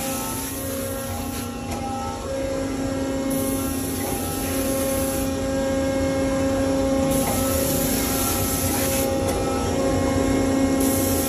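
Flow Mach 2 CNC waterjet running: a steady machine hum with several held tones, and a high hiss that comes on for about two seconds and drops out again, roughly every three and a half seconds.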